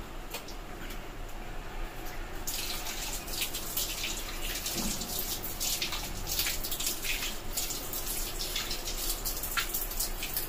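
Water running from a tap into a sink, with irregular splashing as hands scoop water onto the face to rinse it. The splashing picks up about two and a half seconds in.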